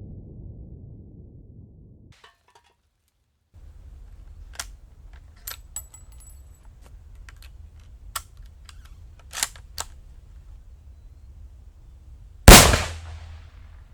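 Mosin-Nagant 91/30 rifle: a low rumble fades out, then a string of sharp metallic clicks and knocks as the bolt is worked and a 7.62×54R round is loaded, then one very loud rifle shot about twelve and a half seconds in, ringing out for about a second.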